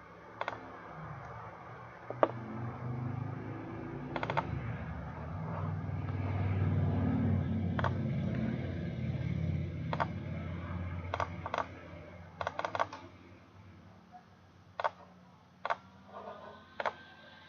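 Computer mouse and keyboard clicks, single and in quick runs, scattered through the stretch. Under them a low rumble swells and fades in the middle.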